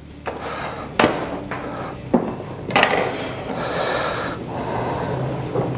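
Handling of kitchen dishes and utensils while cooked hake is served onto a plate: a few sharp knocks, about a second apart, with stretches of scraping and rubbing between them.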